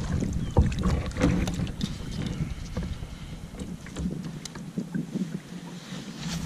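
Kayak paddle strokes splashing in the water, with sharp knocks against the kayak. A low rumble underneath fades about four seconds in, leaving lighter clicks and splashes.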